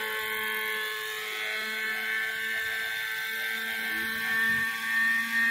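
Radio-controlled model helicopter flying, its motor and rotor making a steady high whine.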